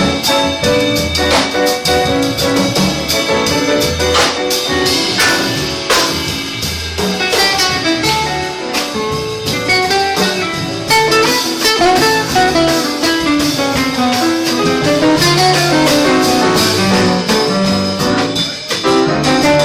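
A band playing an instrumental passage without singing: guitar over bass and drum kit, with a lead melody line weaving through the middle of the passage.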